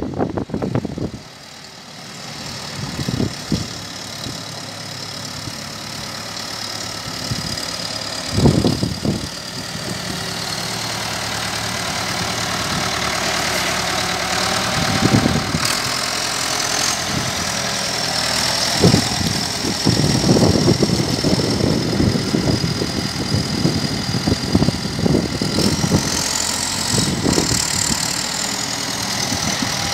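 Ford 7610 four-wheel-drive tractor's four-cylinder diesel engine running as the tractor drives about, growing louder as it comes closer. A high whine shifts up and down in pitch, and there are several short louder surges.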